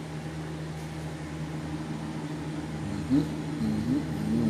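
Steady low machine hum; about three seconds in, a man with a mouthful of milkshake makes a few short closed-mouth hums that rise and fall in pitch.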